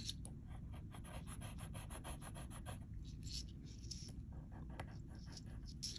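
Thin metal chain being scraped back and forth across a black jewelry touchstone, a faint run of quick scratches several times a second. This leaves a metal streak on the stone for an acid test of whether the chain is sterling silver.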